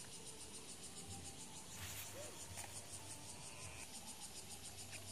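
Faint, high-pitched insect chirping in a steady, rapid pulsing rhythm of about six pulses a second.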